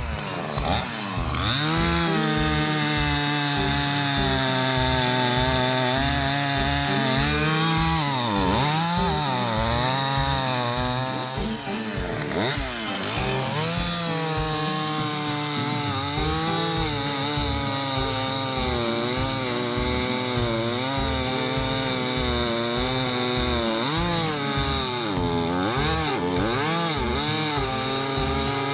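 Husqvarna 450 Rancher two-stroke chainsaw running at full throttle, its chain cutting through a dense, dry hickory log. The engine pitch sags and recovers several times as the chain bites into the wood under load.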